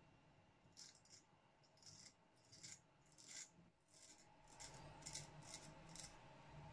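Straight razor scraping through lathered beard stubble on the cheek in a series of short, faint strokes, about a dozen.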